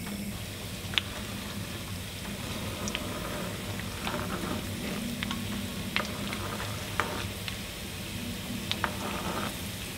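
Soft, steady sizzling of food cooking on a stove, with a few light, sharp clicks scattered through it.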